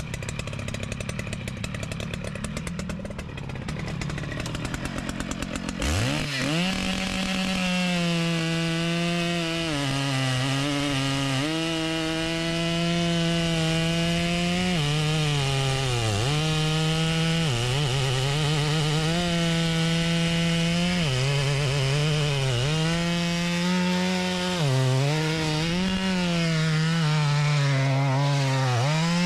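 Stihl MS 881 two-stroke chainsaw puttering at low speed, then throttled up about six seconds in. It cuts into a log, its pitch sagging under load and picking back up again and again, as it noodles the round along the grain.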